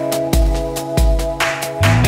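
Instrumental background music with a steady beat, deep bass notes and held sustained tones.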